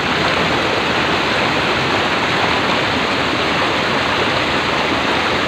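River water flowing steadily over and through the bamboo slats of a bidai fish trap: an even, unbroken rush of water.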